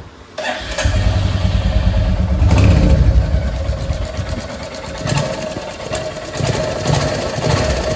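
Royal Enfield J-series 350 single-cylinder engine starting about half a second in, briefly revving, then settling into a steady idle. The tappet clatter is gone after a valve clearance adjustment, with only an even light ticking left.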